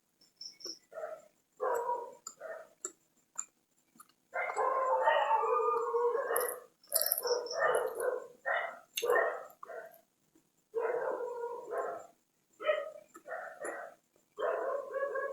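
A dog barking and howling in a run of short calls with gaps between them, with a longer stretch of calling about four seconds in.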